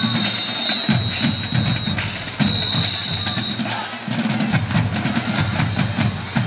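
Marching band drum line playing a cadence: bass drums on an even beat of about two hits a second, with snare drums over it. A thin, steady high tone runs through the first half.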